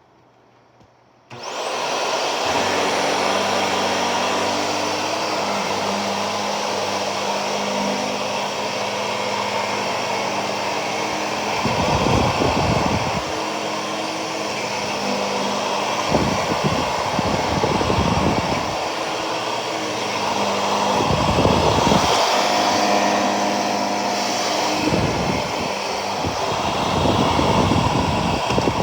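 Shark Navigator Lift Away Professional (NV391) upright vacuum cleaner switched on about a second in and running steadily, with several deeper, louder rushes that come and go.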